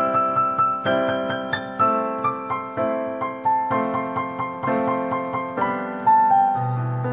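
Background piano music: a slow, gentle melody of single struck notes over chords, with a low bass note coming in near the end.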